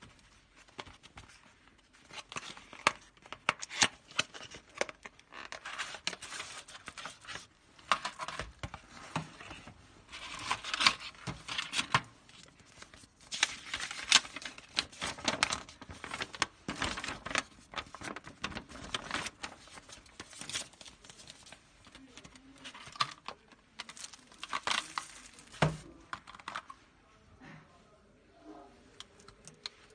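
Cardboard box and paper instruction leaflet handled and unfolded: irregular rustling and crinkling with sharp taps and clicks, starting about two seconds in and thinning out near the end.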